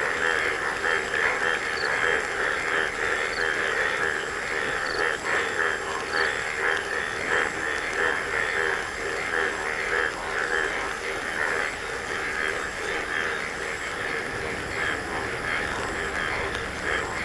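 A dense chorus of frogs calling together, a steady, rapid pulsing that goes on without a break.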